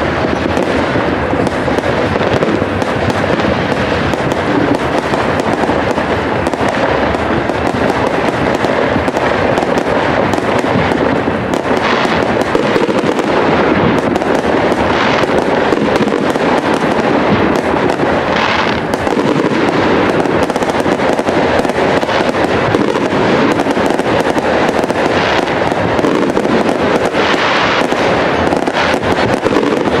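Aerial firework shells going off in a dense, unbroken barrage of overlapping bangs and crackles, with a few louder crackling stretches after the middle.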